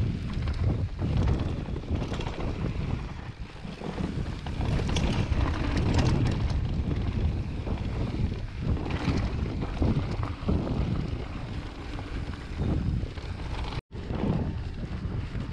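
Wind buffeting an action camera's microphone while a Vitus Sommet full-suspension mountain bike rolls fast down a grassy dirt trail, with tyre rumble and the bike clattering over bumps. The sound drops out for an instant about fourteen seconds in.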